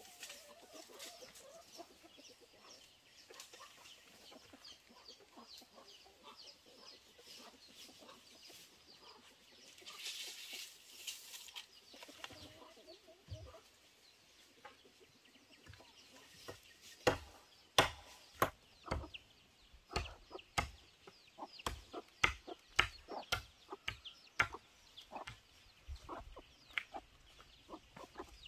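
Chickens clucking faintly in the first half. Past the middle come a run of sharp, irregular knocks, about one or two a second, which are the loudest sounds.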